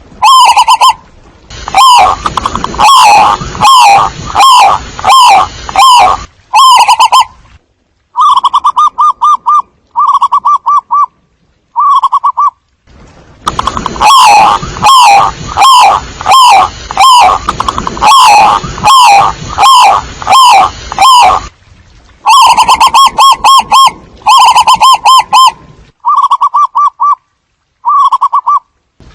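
Zebra dove cooing: run after run of quick, rolling staccato coo notes with short gaps between runs, sparser in the middle stretch and near the end.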